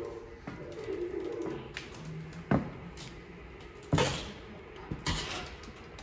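A few sharp knocks over a low indoor background hum: one about two and a half seconds in, a louder one about a second later, and a third near the end.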